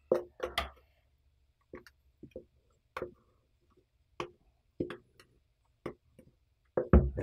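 Mixing spoon knocking and scraping against a glass mixing bowl while dry flour mixture is stirred, in short irregular taps about one or two a second.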